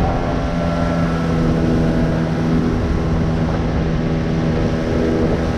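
Small outboard motor pushing an inflatable dinghy along at a steady speed: an even engine hum that holds one pitch, over a rough low rumble.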